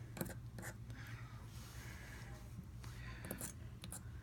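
Faint, scattered small metal ticks as a needle-tipped pick works loose IKBS ball bearings out of a folding knife's pivot area, with a few ticks close together near the end, over a steady low hum.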